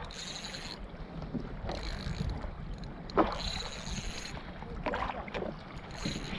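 Fishing reel drag buzzing in about four short bursts as a big fish pulls line off and tows the kayak, with a sharp knock about three seconds in. Wind rumbles on the microphone underneath.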